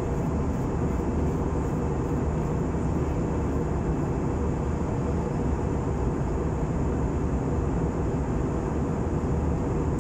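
Airliner cabin noise in cruise flight: a steady low rumble of engines and rushing air, with a faint constant hum, unchanging throughout.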